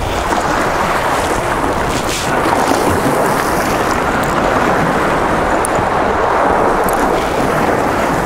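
Steady rushing noise of wind and ocean surf, with wind buffeting the microphone.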